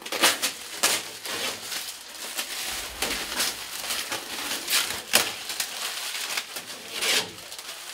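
Irregular rustling and crumpling strokes of a cloth being rubbed and bunched against the bare car bodywork, some strokes sharper and louder than others.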